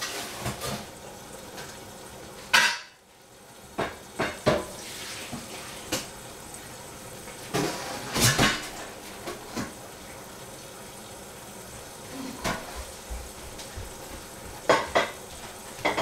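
Irregular clinks and clatters of dishes, pots and cutlery being handled, the loudest about two and a half seconds in, over a steady low hiss.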